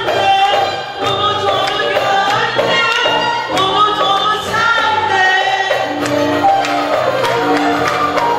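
Turkish classical music sung live: a female soloist with a choir, in makam muhayyerkürdi, accompanied by violin and ensemble.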